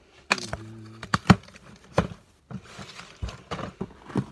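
Box cutter slitting the packing tape on a cardboard case, then the cardboard flaps being pulled open, with sharp knocks and scraping rustles of cardboard.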